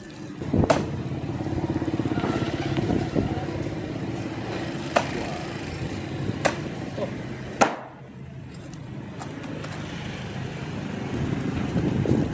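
A small engine running steadily with a fast flutter, with four sharp clicks or knocks over it.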